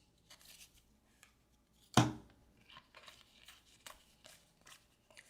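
Trading cards and their foil pack wrappers being handled: short rustles and crinkles with light ticks. A single sharper knock about two seconds in.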